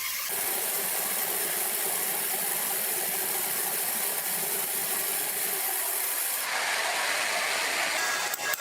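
Sawmill machinery running with a steady, hissing mechanical noise that changes abruptly about a third of a second in and again later; near the end sharp, irregular clicks begin.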